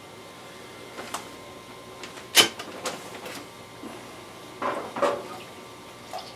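Clicks and knocks from handling the hose and fittings on top of a Grainfather brewing kettle. A sharp click about two and a half seconds in is the loudest, and a few knocks come close together some two seconds later.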